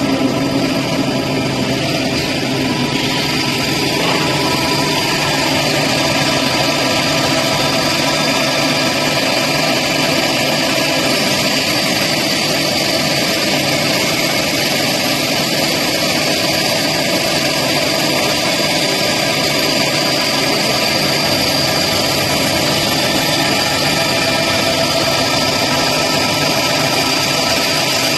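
Heavy-plate deburring machine running steadily, a constant mechanical whine over a hiss with no change in pitch or level.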